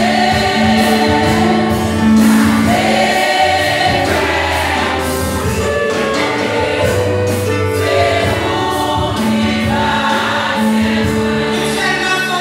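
Church congregation singing a hymn together in Haitian Creole, many voices holding long notes over a steady low accompaniment.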